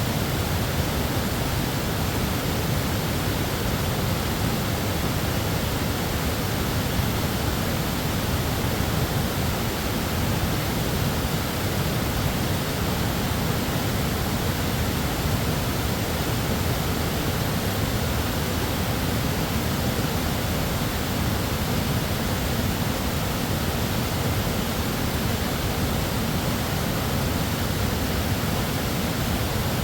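Tiered mountain waterfall pouring onto rock: a steady, unbroken rush of water, loudest in its low deep rumble.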